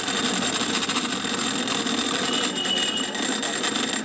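Cotton candy machine running, its spinner head turning in the steel bowl with a steady, rapid mechanical whir while pink sugar floss is spun.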